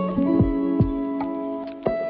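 Background music: plucked notes over held chords, with occasional low beats.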